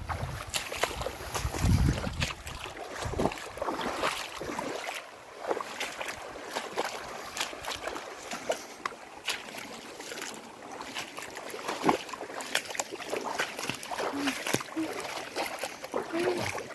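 Shallow muddy floodwater running across a field, splashing and rippling around clumps of grass. Wind rumbles on the microphone in the first couple of seconds.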